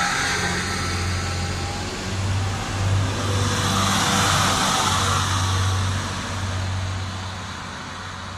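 SNCF X 73500-series TER diesel railcar pulling away past the platform. Its diesel engines run with a steady low hum under a rushing noise, loudest as the car goes by about three to five seconds in, then easing off.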